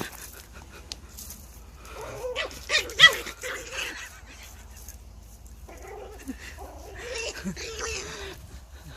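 Dogs barking and whining in two spells of short, pitched calls, about two seconds in and again about six seconds in, the loudest near three seconds.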